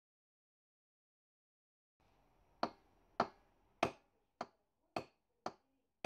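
Hammer tapping a metal tube used as a drift, pressing a new main jet into a Zenith-Stromberg 175CD2SE carburettor body. There are about seven sharp taps, roughly two a second, starting a little over two seconds in; the first three are the loudest.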